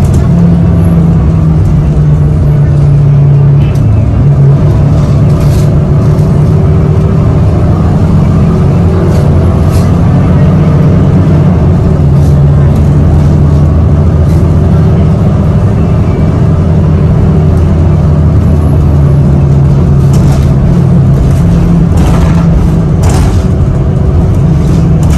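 City bus running along the road, heard from inside the cabin: a steady low drone with a few sharp clicks and rattles.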